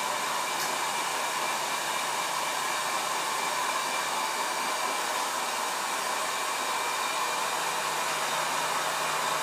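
Honey extractor spinning frames of honeycomb: a steady motor whine over an even hiss, unchanging throughout.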